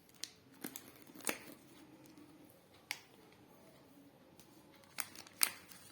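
Packaging and small parts being handled: a few sharp clicks and taps, the loudest near the end, with light rustling of paper or plastic between them.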